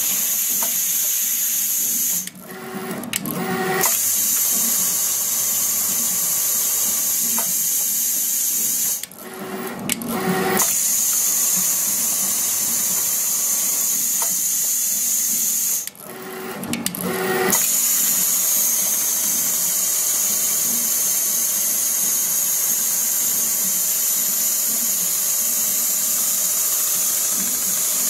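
Richpeace automatic pattern sewing machine running and stitching along a shoe-upper template, a steady high-pitched machine sound. Three times, about 2, 9 and 16 seconds in, it breaks off for a second or so into a lower whirring tone, then picks up again.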